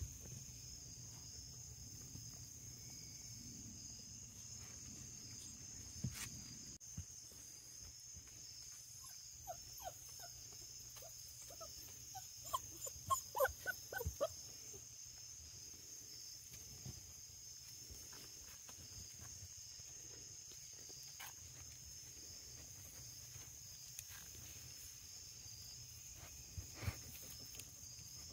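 Hound puppy whining: a run of short, high calls lasting a few seconds about halfway through, with a few soft taps and a steady faint hiss behind.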